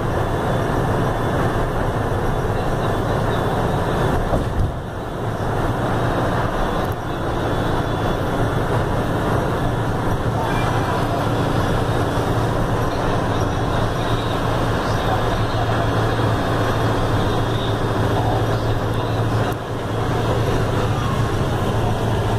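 Inside the cabin of a Mercedes-Benz OF-1519 city bus at cruising speed: a steady low engine drone mixed with road and tyre noise. The noise dips briefly twice, a few seconds in and near the end.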